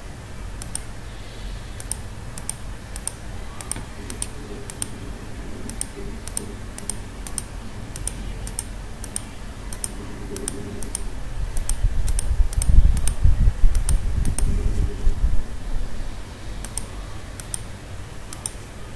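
Computer mouse clicking: single sharp clicks at an uneven pace of one or two a second, each placing an anchor point with Photoshop's pen tool. A low rumbling noise swells through the middle and is the loudest part.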